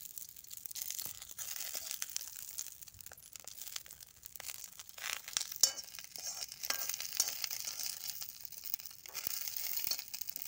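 Mustard seeds, curry leaves and a dried red chilli sizzling in hot oil in an aluminium kadhai, with scattered crackles, the tempering (tadka) for a chutney. A spoon scrapes and clicks against the pan as they are stirred, with one sharp click about five and a half seconds in.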